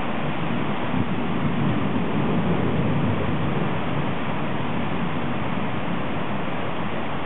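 Heavy thunderstorm rain falling steadily: a dense, even hiss with no breaks.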